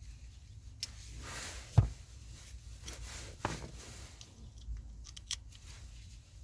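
Hand-handling noises: a few sharp knocks and clicks with some rubbing and scraping. The loudest knock comes about two seconds in.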